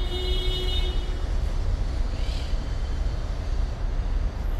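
Steady low rumble of city traffic, with a few faint high chirps near the start and about two seconds in.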